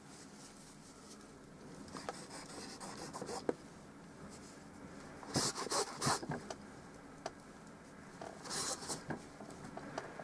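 Cloth rag rubbing over a wet oil painting on canvas to lift paint off for the light areas: soft scrubbing strokes, a few short bursts with quiet stretches between.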